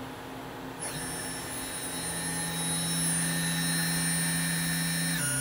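Spindle of a Brother TC-32BN-QT CNC drill-and-tap machine starting up about a second in and running with a steady whine; its pitch steps down near the end as the speed changes.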